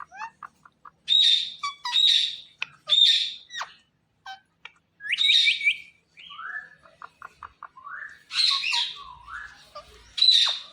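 Indian ringneck parrot calling: a string of loud, harsh screeches between quick rising chirps and short whistles.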